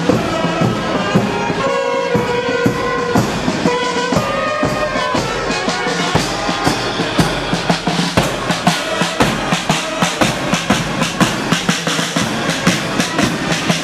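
Marching band playing a march: bass drum and snare beating a steady marching beat, with a melody of held notes clear in the first few seconds.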